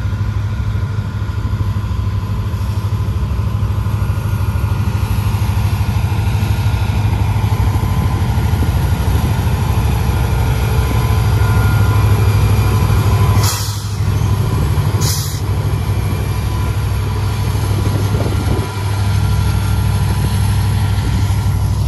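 Diesel locomotive working as a distributed-power (DPU) unit in a slow freight train, its engine running loud and steady close by. Two brief hisses come about a second and a half apart a little past the middle.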